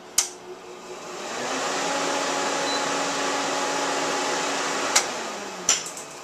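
A switch clicks and a PDP-11/34A minicomputer powers up, its cooling fans spinning up over about a second to a steady whir with a low hum. About five seconds in another click comes, and the fans wind down, the hum falling in pitch, as the machine is switched off.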